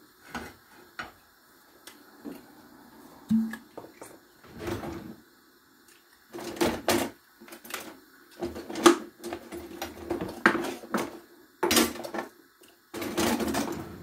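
Kitchen handling noises: irregular knocks and short clattering bursts of containers and utensils being moved, busier in the second half, over a faint steady low hum.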